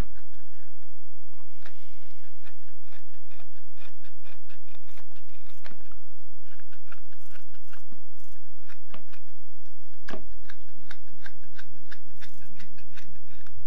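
Knife whittling a small piece of fatwood, shaving it into a toggle: a run of short, irregular scraping cuts, with one louder cut about ten seconds in.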